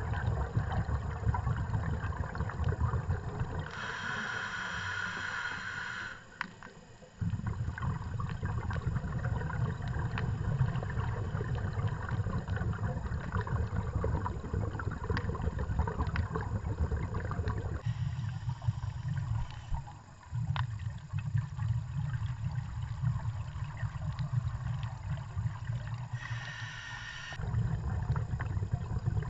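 Underwater scuba regulator breathing: a hiss of inhalation about four seconds in and again near the end, with a low bubbling rumble of exhaled air between, over many faint scattered clicks.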